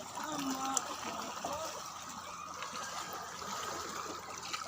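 Water trickling and lapping, a steady wash of noise, with faint distant voices briefly near the start.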